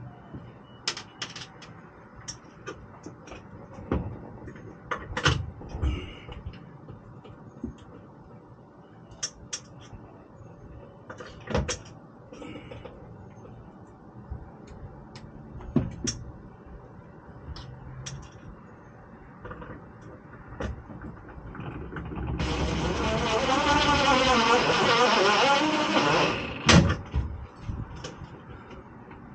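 Small clicks and knocks of hands working on fittings, then, about 22 seconds in, a cordless drill/driver runs for about four seconds with its pitch wavering under load as it drives a screw into the truck cap, followed by a sharp knock.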